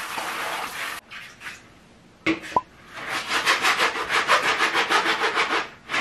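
Water from a hand shower running onto a vacuum cleaner filter for about a second. Then a knock, and fast, even scrubbing strokes, about eight a second, as the wet filter is scrubbed with a brush.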